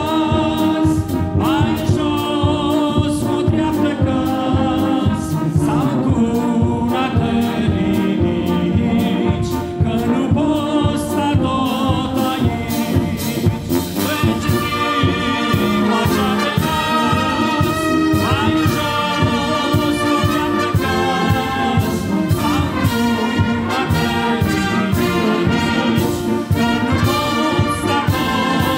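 A church brass band plays a hymn, with trumpets, trombones, euphoniums and a sousaphone over a steady drum beat. A solo trumpet in front of the band joins partway through.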